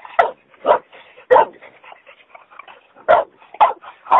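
Shar Pei puppy barking: six short, sharp barks, three close together, then a pause of over a second, then three more.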